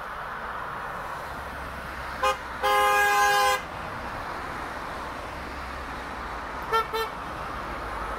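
Car horns honking from passing cars: a short toot, then a long blast of about a second, and later two quick toots, over the steady tyre and engine noise of the passing traffic.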